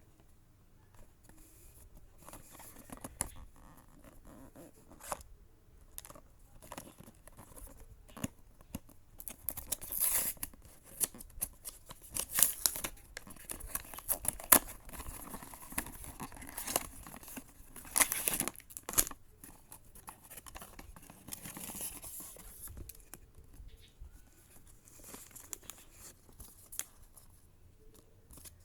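Blind-box packaging being torn open and handled: tearing and crinkling with scattered sharp clicks, busiest and loudest in the middle stretch, then quieter rustling near the end.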